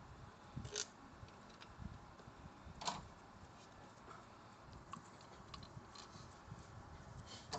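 A few scattered light clicks and knocks, the sharpest just under a second in and at about three seconds, over a faint low rumble.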